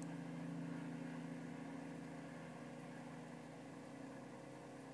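Steady low mechanical hum made of several fixed tones over a faint hiss, easing off slightly toward the end.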